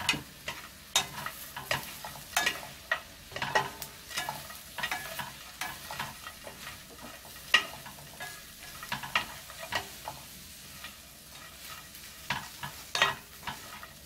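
Wooden spatulas scraping and knocking against a stainless steel pan as dried anchovies and nuts are tossed and stirred: irregular sharp scrapes and clacks, with the dry pieces rustling in the pan.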